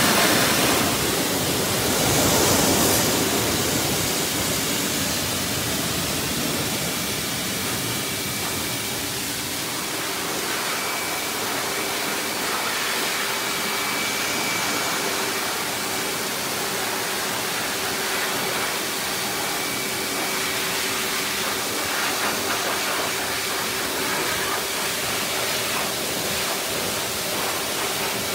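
Dog-grooming blow dryer blowing a steady rush of air over a matted coat, with a faint steady whine joining in partway through.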